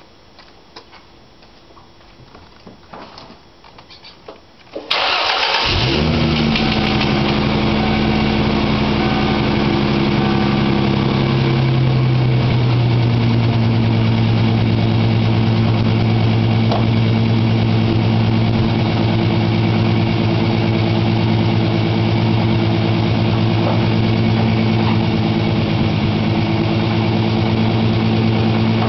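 A few faint clicks, then about five seconds in the 1995 Ford Mustang's 3.8-litre V6 starts through a Flowmaster Force II exhaust with a 50 Series muffler. It catches with a sudden loud burst, runs a little faster for several seconds, then settles to a steady, deep idle.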